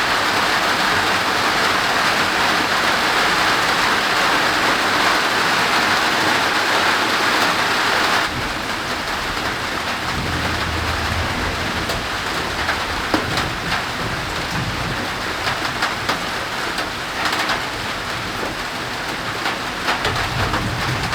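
Heavy, windless tropical downpour, a steady dense hiss of rain that abruptly becomes lighter about eight seconds in, with individual drops tapping after that. Low rumbles of distant thunder come twice.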